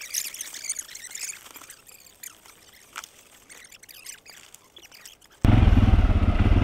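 Faint, scattered high chirps and ticks over a quiet background. About five seconds in, a motorcycle engine comes in suddenly and runs loud.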